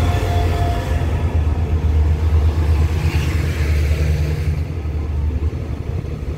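Arriving passenger train: the SRT diesel-electric locomotive's engine passes close by, and the coaches roll slowly past as the train draws in to stop. It is a loud, steady, low rumble that eases a little near the end.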